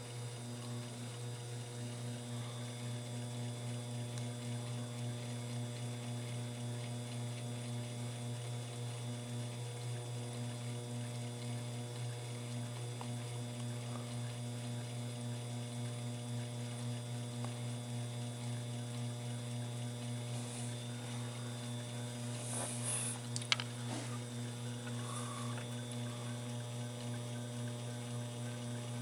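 Sherline mill's spindle motor running steadily with a hum, turning a coaxial centering indicator. A few light clicks about three-quarters of the way through.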